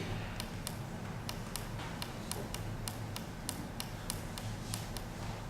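A small push-button switch on a microcontroller board clicked over and over, about three or four sharp clicks a second, stepping the electronic alarm clock's date setting up one value per press. A low steady hum sits underneath.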